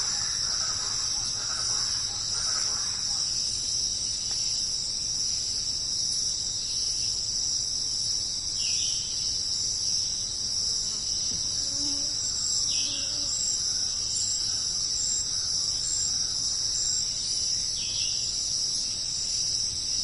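Steady, high-pitched chorus of insects such as crickets, droning without a break.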